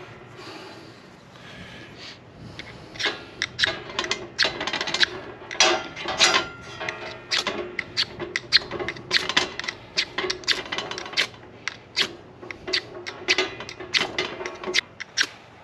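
Ferro rod struck over and over with a metal striker to throw sparks onto tinder: a rapid series of sharp, scratchy scrapes, a few a second, starting about three seconds in.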